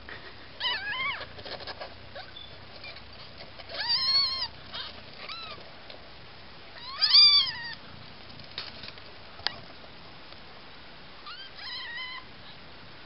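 Young nursing kittens mewing: four short, high cries that rise and fall in pitch, spread across several seconds. The loudest comes about seven seconds in and the last is faint. A single sharp click sounds between the last two cries.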